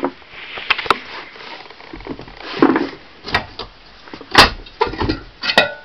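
Irregular knocks, clicks and short scraping rattles of the electric motor and nearby tools being handled; the motor itself is not running.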